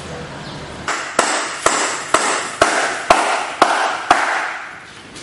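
A steady run of about eight sharp strikes, roughly two a second, each followed by a short ring; they start about a second in and stop about four seconds in.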